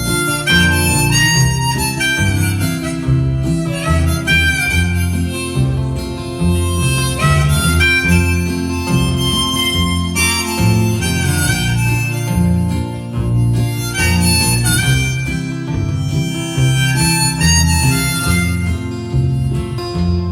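Harmonica playing a solo of held, bending notes over acoustic guitar accompaniment: the instrumental break of a live country song.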